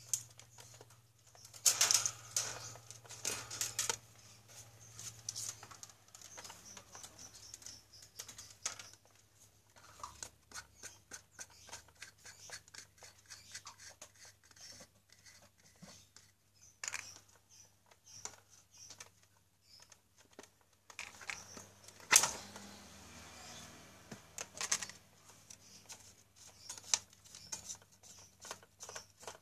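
Handling noise of a stand fan being taken apart by hand: the wire guard and its clip ring rattling and clicking, and the plastic blade and spinner cap scraping and knocking, in irregular clicks and scrapes. A loud clatter comes near the start and a sharp click about three quarters of the way through.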